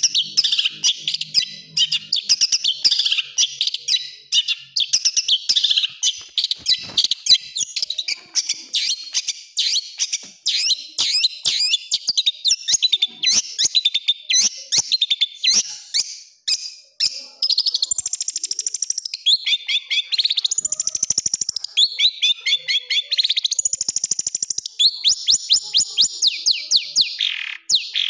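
Long-tailed shrike (cendet) singing: a fast, dense run of harsh chattering notes, the rough rapid-fire 'tembakan' phrases. From about two-thirds in, these change to longer, high, rapid rattling trills.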